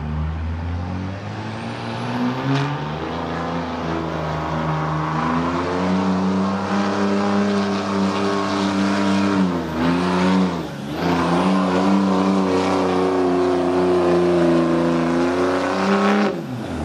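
Dodge Ram street-class diesel pickup pulling a weight sled at full throttle. The engine revs climb over the first few seconds, hold high, dip briefly about ten seconds in and recover, then fall away near the end.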